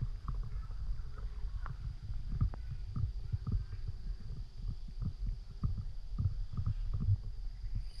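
Footsteps through long grass and camera handling as the person filming walks: a run of soft, uneven low thumps, about two or three a second, over a steady low rumble.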